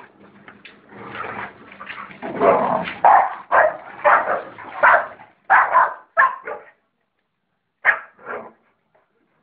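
American Pit Bull Terriers barking during rough play: a rapid run of loud barks for several seconds, then a short pause and two more barks near the end.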